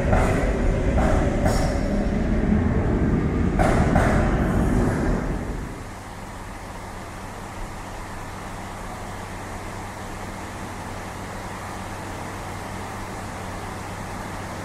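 Rio de Janeiro metro train running out of the station, its wheels rumbling on the rails with a few short sharp rail noises in the first four seconds. It fades out about five and a half seconds in, leaving a steady low hum.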